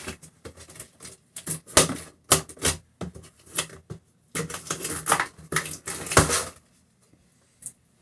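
A cardboard carton being opened by hand: an irregular run of clicks, scrapes and rustles of cardboard and packing, busiest about four to six seconds in, with a lull near the end.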